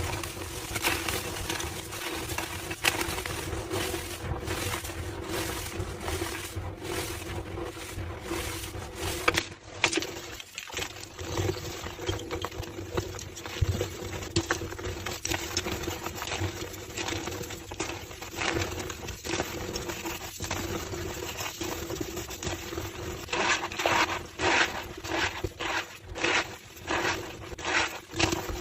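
Slabs of homemade gym chalk being crushed, a dense run of crunching and crackling. It grows louder and sharper a few seconds before the end.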